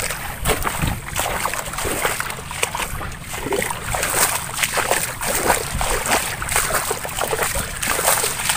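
Irregular splashing and sloshing of wet mud and water as a hand tool works soft, flooded paddy soil into a rice seedbed.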